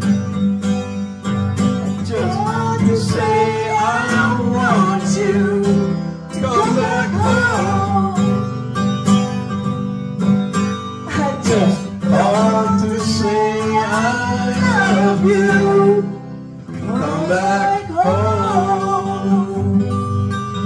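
Live country song: an acoustic guitar playing under singing through microphones, the voices coming in phrases between guitar passages, with a brief drop in loudness about three-quarters of the way through.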